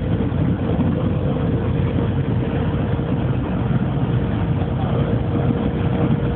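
Steady road and engine noise heard from inside a moving vehicle travelling at speed: a dense, even rumble with one constant hum-like tone over it.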